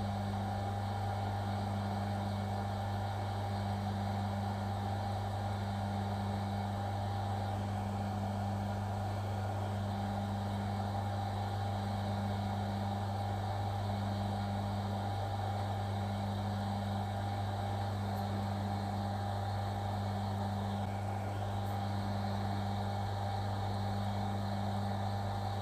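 Steady low hum with a faint higher steady tone above it, unchanging throughout; dabbing solder paste onto the board makes no sound that stands out.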